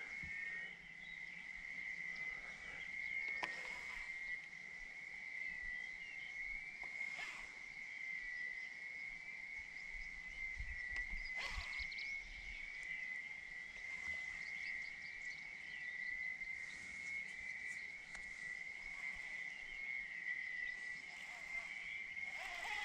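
Frogs calling from the reeds: one continuous high-pitched trill, with three faint clicks along the way.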